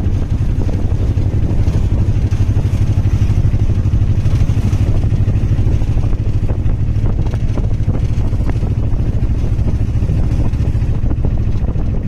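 Motorcycle engine running steadily while riding along, a low, even engine note with a fast regular pulse.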